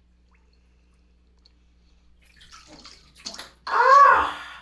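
Water sloshing in a bathtub as a plush toy is dunked, rising from near silence about halfway in. Near the end comes a short, loud high-pitched cry whose pitch rises and then falls.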